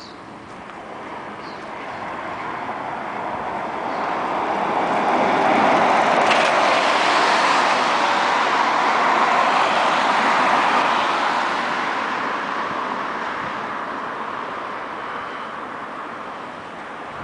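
A road vehicle passing close by: tyre and engine noise swelling to a peak about six seconds in, holding for several seconds, then fading away slowly.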